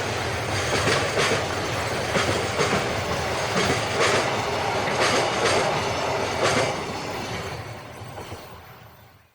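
Freight train wagons rolling past, wheels knocking over the rail joints in a regular clickety-clack about twice a second. The sound fades as the train draws away from about seven seconds in, then cuts off abruptly.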